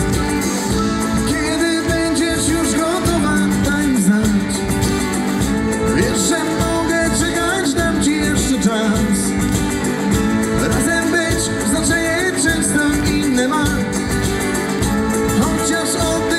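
Live pop-rock band performance: acoustic guitar strumming over drums, with a male voice singing.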